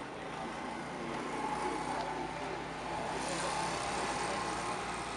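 Car engine running steadily, with a swell of hissing road noise about three seconds in.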